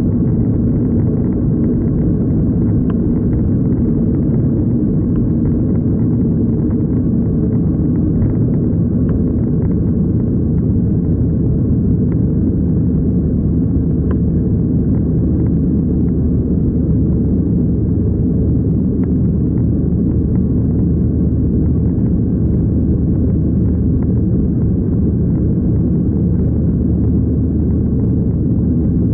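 Cabin noise of a Boeing 737-500's CFM56-3 turbofans at takeoff thrust, heard from a window seat beside the wing: a steady, low engine noise that holds level from the end of the takeoff roll through lift-off and the initial climb.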